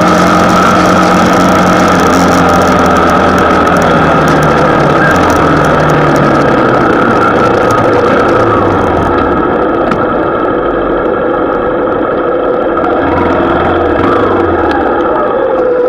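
Motorcycle engine running while riding, with heavy wind rush on the microphone; the engine note steps down and the wind dies away about two-thirds of the way through as the bike slows to a stop.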